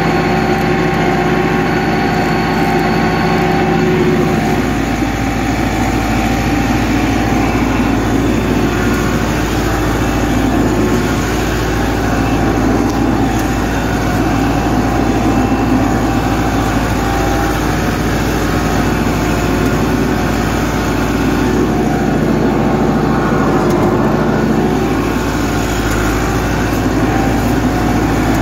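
Massey Ferguson 385 tractor's four-cylinder diesel engine running steadily under load while pulling a three-tine chisel plough through the soil. The low rumble grows denser and rougher about four seconds in.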